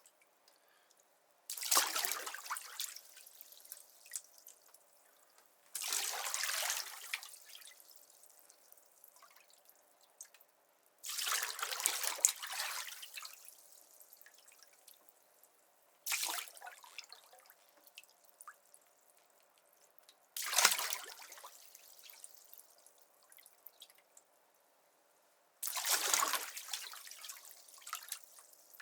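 Bathwater splashed by a person sitting in the tub: six separate splashes about every five seconds, each followed by dripping and trickling that dies away over a second or two.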